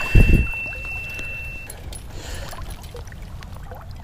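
Creek water sloshing and splashing around a person's legs as they wade, with a low thump about a quarter second in and small scattered clicks after.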